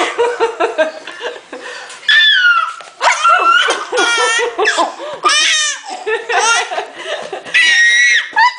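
A baby laughing hard in repeated bursts of high-pitched belly laughter, set off by someone's exaggerated sneezing.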